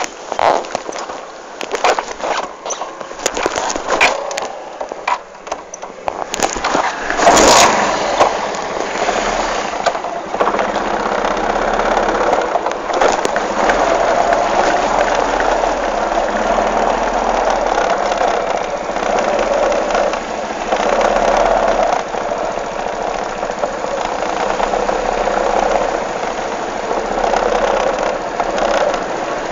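Some knocks and clicks, then a loud burst about seven seconds in, after which an engine runs steadily.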